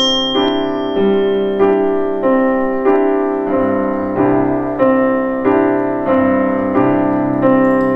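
Piano playing a flowing broken-chord accompaniment, with a new note starting roughly three times every two seconds in a steady rhythm.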